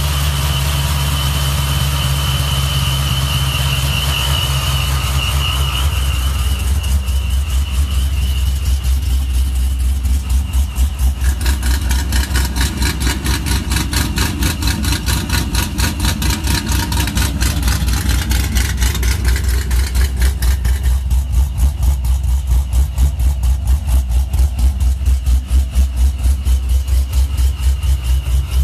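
Supercharged V8 of a fifth-generation Chevrolet Camaro idling. It starts steady with a high whine over it, then settles after a few seconds into an even pulsing idle of several beats a second.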